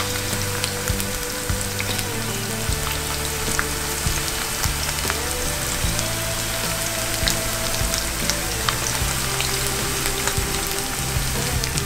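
Bluegill fillets coated in fish fry deep frying in hot peanut oil: a steady sizzle with scattered crackles and pops.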